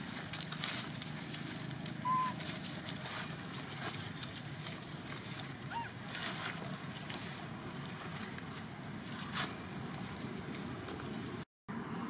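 Dry leaves rustling and crackling as monkeys move about in the leaf litter, over steady background noise and a faint steady high tone. One short high squeak about two seconds in, and the sound cuts out briefly near the end.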